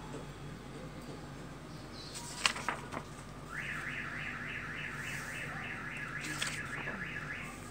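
An electronic alarm sounding in the background: rapid rising chirps, about four a second, starting about three and a half seconds in and stopping shortly before the end. A few sharp clicks come before it, the loudest about two and a half seconds in.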